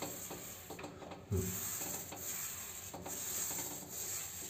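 Paint roller loaded with matte ceiling paint rolling across a ceiling, giving a steady rubbing noise, with one brief low sound about a second in.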